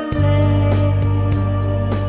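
Slow Christian worship-song music: sustained chords over a deep bass note that comes in just after the start, with a steady drum beat about every 0.6 seconds.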